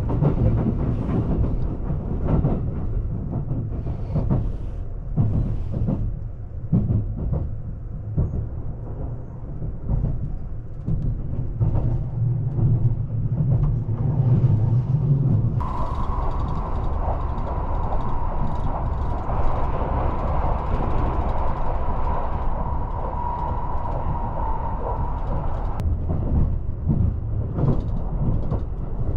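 Electric commuter train running, heard from inside the passenger car: a steady low rumble with clacks of the wheels over rail joints. For about ten seconds past the middle, a steady high whine and a rushing hiss join in, then stop abruptly.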